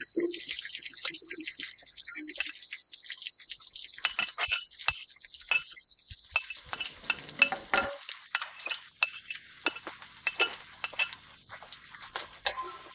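Sliced onions sizzling in hot oil in a metal pot. From about four seconds in, a spoon clicks and scrapes repeatedly against the pot as they are stirred.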